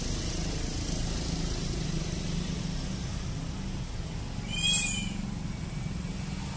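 Steady low rumble of slow, congested street traffic, with motorcycles and cars creeping past close by. About four and a half seconds in, a brief high-pitched squeal cuts through.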